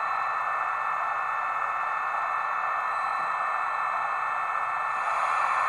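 Sound decoder in an H0 model ÖBB 1116 Taurus playing the locomotive's steady standstill running sound through the model's small loudspeaker: an even hiss with faint steady whistling tones, growing a little louder near the end.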